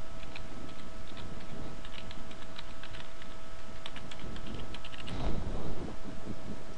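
Typing on a computer keyboard: irregular keystroke clicks, some in quick runs, as an email address and then a password are entered. The typing stops about five seconds in, and a soft low thump follows. A faint steady hum runs underneath.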